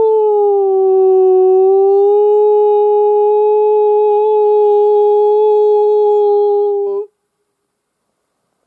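Imitation wolf howl used as a predator call: one long, steady howl that sags slightly in pitch at first, is then held level, and cuts off suddenly about seven seconds in.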